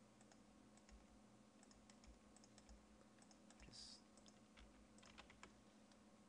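Near silence: faint, scattered computer keyboard and mouse clicks over a low steady hum, with a brief soft hiss about four seconds in.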